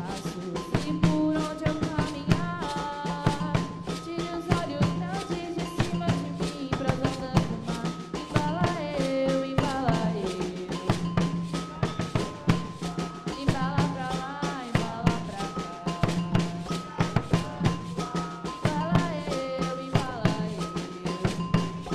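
Afro-Brazilian percussion ensemble drumming a dense, fast rhythm, with a melody running over the drums.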